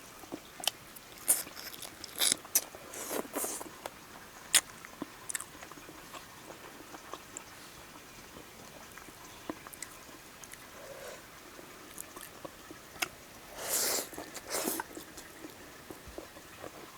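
Close-up eating sounds of a person biting and chewing food, with scattered sharp mouth clicks and smacks. Two louder, rushing bursts come about fourteen seconds in.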